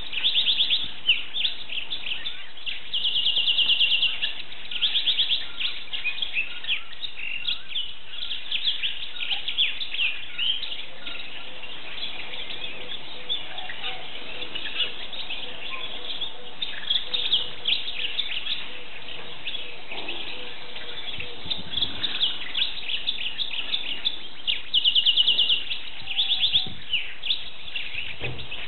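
Wild Atlantic canary singing a continuous song of quick chirps, broken by fast rolling trills at the start, a few seconds in, and again near the end.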